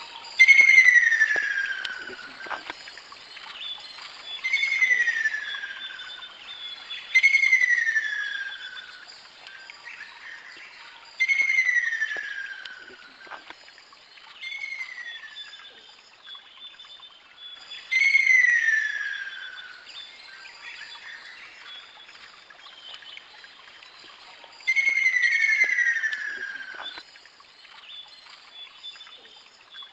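Ruddy kingfisher calling: a loud call that slides down in pitch over about a second and a half, repeated about seven times at intervals of three to four seconds, with two calls overlapping near the end.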